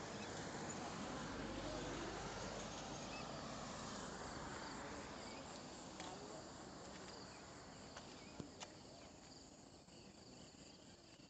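Open-air roadside ambience: insects chirring steadily in the fields, under a broad rushing noise that swells over the first few seconds and then slowly fades.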